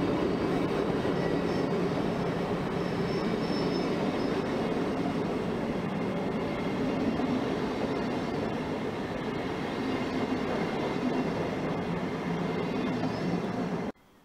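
A train of ÖBB CityShuttle passenger coaches rolling past along the platform, the steady rumble of wheels and running gear, with a faint brief squeal about three seconds in. The sound cuts off suddenly near the end.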